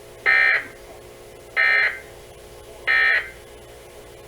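Three short electronic data bursts, evenly spaced about 1.3 seconds apart, each about a third of a second long with a buzzy, screechy tone. They fit NOAA Weather Radio's SAME end-of-message code, which marks the end of an emergency alert broadcast.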